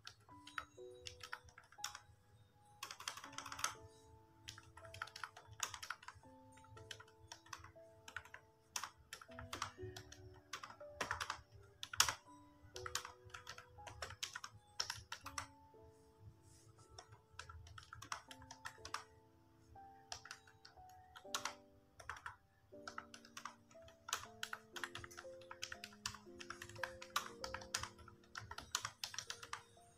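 Typing on a Mofii wireless keyboard: quick, irregular key clicks with soft background music of held notes underneath.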